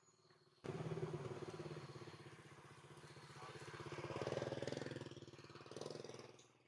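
A small engine running steadily, with an even fast pulse and unchanging pitch. It starts abruptly about half a second in, grows louder midway and fades out near the end.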